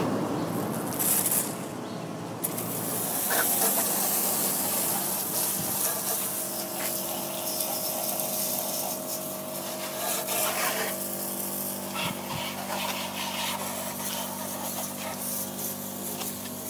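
Water spraying from a hose onto a motorcycle, a steady hiss, with the electric water pump feeding it running alongside with a steady hum.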